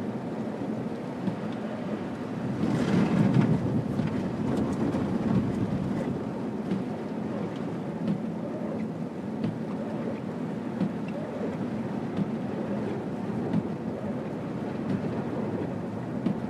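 Car driving on a snow-covered road, heard from inside the cabin: a steady low rumble of tyres and engine, swelling briefly about three seconds in.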